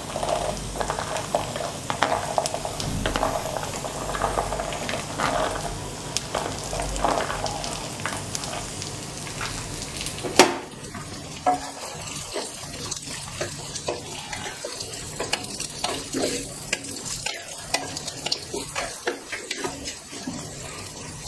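Whole shallots dropped into hot oil in a clay pot, sizzling, with many small knocks and clicks as they land during the first half and one loud knock about ten seconds in. Afterwards a steadier, quieter sizzle as they fry, with the light scrape of a wooden spatula stirring them against the clay.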